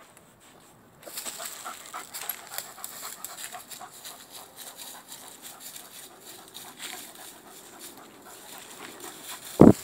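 Rhodesian Ridgeback panting and moving through dry fallen leaves, with a crackly rustle of paw steps. Near the end comes a single short, loud, deep thump.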